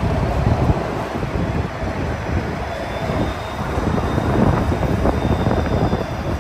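Bombardier Flexity Outlook low-floor streetcar rolling past close by on street track: a steady rumble of wheels and motors mixed with street traffic, with a faint high whine in the middle.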